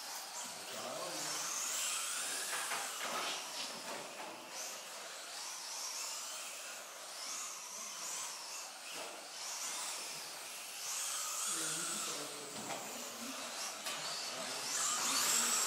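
Radio-controlled kart's motor whining, its pitch rising and falling again and again as it speeds up and slows through the corners, with a louder rise near the end.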